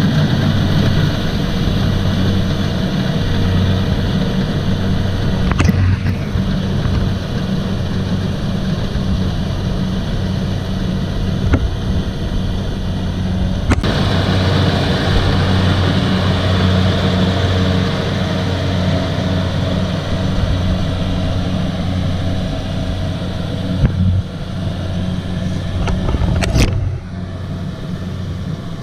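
Kubota DC-70 combine harvester's diesel engine running steadily under working load, with three sharp knocks along the way and a slight drop in level near the end.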